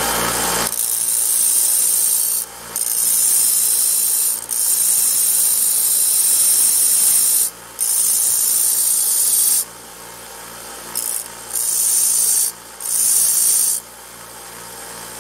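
The stamped-steel frame of a Marx 7-inch freight car being abraded down flat where its side skirts were cut off: a steady, hissing metal rasp. It runs in long stretches of a few seconds, broken by brief pauses, with several shorter runs near the end.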